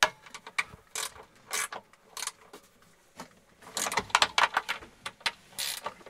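Irregular clicks and rattles of hand tools and fixings being worked while trim and the siren housing are taken apart, with a busier burst of rattling about four seconds in.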